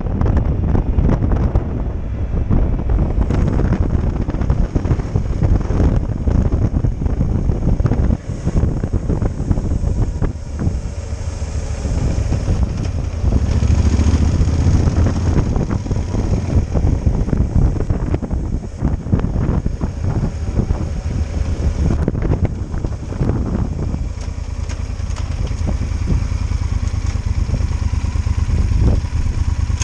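Yamaha XT1200 Super Ténéré's parallel-twin engine running as the motorcycle is ridden along, mixed with wind rumble on the microphone.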